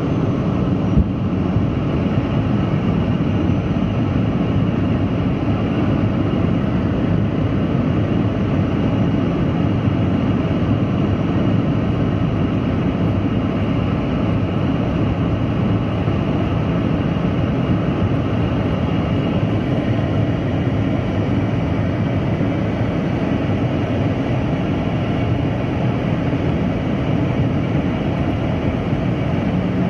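Boeing 717 jet airliner with Rolls-Royce BR715 turbofans: a steady, dense low roar of engine and airflow that holds without change. There is a small knock about a second in.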